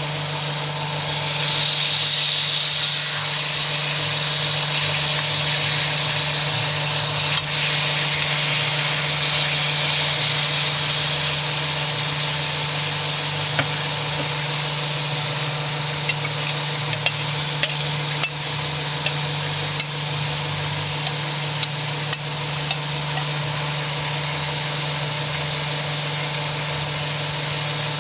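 Deer steak frying in butter in a pan: a steady sizzle that gets louder about a second in, with scattered sharp pops of spattering fat. A steady low hum runs beneath it.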